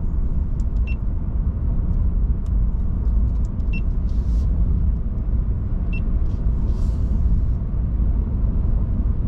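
Inside the cab of a Ford F-150 Lightning electric pickup on the move: a steady low rumble of tyres and road. Three faint short ticks come at intervals of two to three seconds.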